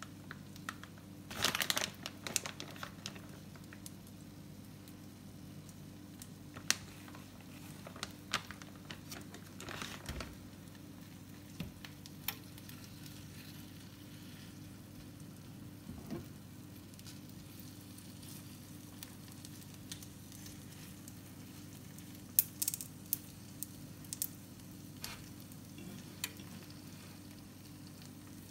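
Slices of beef rib and a cheese-topped slice of bread sizzling in a nonstick frying pan over a steady low hum. A plastic bag of shredded cheese crinkles about a second and a half in, and a fork clicks and scrapes against the pan now and then, in a quick cluster near the end.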